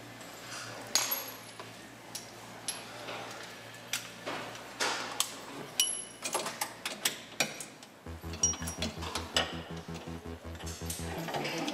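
Metal clinks and knocks as hose couplings and valve fittings on a fuel tanker's delivery panel are handled. Background music with a steady bass beat comes in about eight seconds in.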